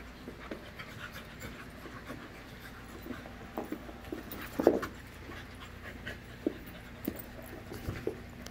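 Puppies play-wrestling: panting with scattered short scuffling and mouthing noises, and one louder short sound just before five seconds in.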